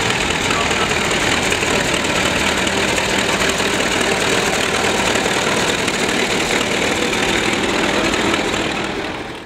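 Engine of a vintage green Fordson tractor running steadily as it drives slowly past close by. The sound falls away near the end and cuts off.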